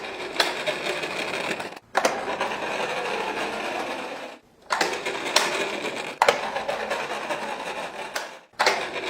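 Plastic toy car launcher playset being launched again and again: a steady mechanical rattle in four runs of about two seconds each, each starting with a sharp click.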